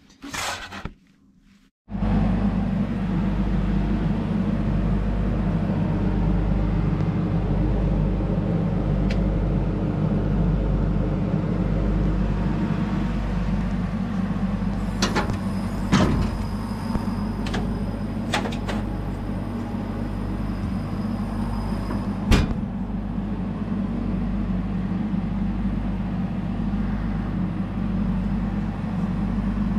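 Laser cutter running with its BOFA fume extraction unit: a steady fan drone that starts about two seconds in, with a few sharp clicks about halfway through.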